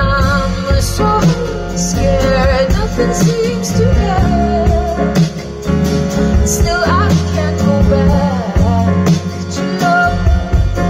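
Live pop song: a woman singing over upright piano and electric guitar, amplified through a PA.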